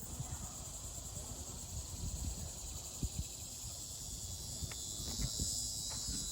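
Steady, high-pitched chorus of insects droning without a break, growing a little louder near the end, with a few faint knocks.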